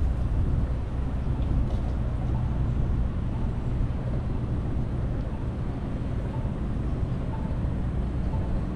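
Steady low rumble of wind on the microphone, mixed with street and traffic noise, picked up while riding a bicycle.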